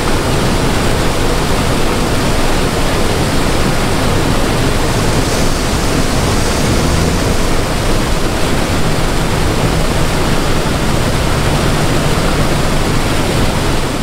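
Case IH combine harvesting corn close by: a loud, steady rushing noise of the machine at work, with a low engine hum underneath.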